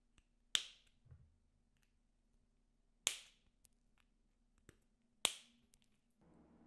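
Three sharp snaps, a little over two seconds apart, each ringing out briefly, with a soft low knock shortly after the first.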